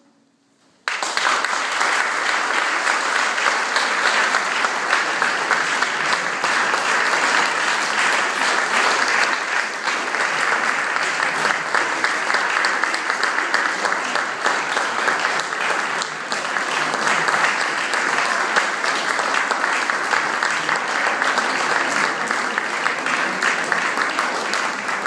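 A large audience clapping. It breaks out suddenly about a second in after a short hush and holds steady throughout.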